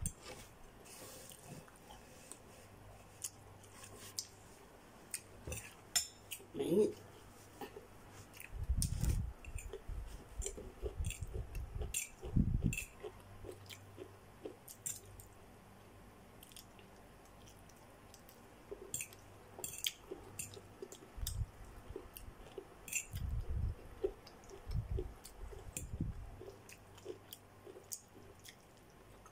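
A person eating noodles with a fork: chewing and mouth sounds with scattered sharp clicks and a few dull low bumps.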